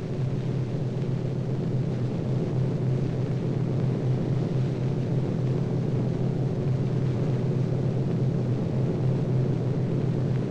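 Steady drone of a C-47 Skytrain's twin radial piston engines in flight, an even low rumble.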